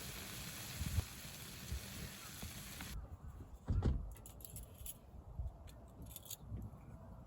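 Steady rushing wind noise for about three seconds, then an abrupt cut to quieter surroundings with one low thump a little under a second later and a few light clicks.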